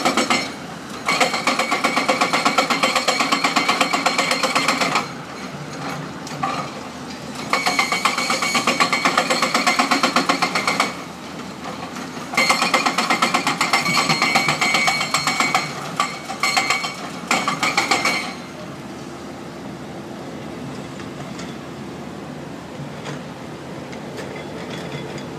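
Excavator-mounted hydraulic breaker hammering concrete in several long bursts of rapid blows with short breaks between. It stops about eighteen seconds in, leaving the steady running of the machines' diesel engines.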